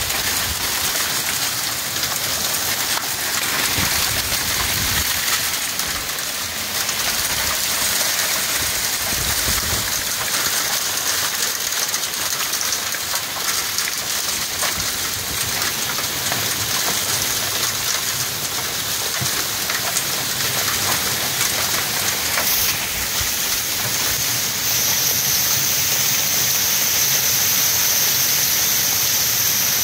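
Heavy wind-driven rain pouring down in a steady hiss, growing a little louder about 25 seconds in.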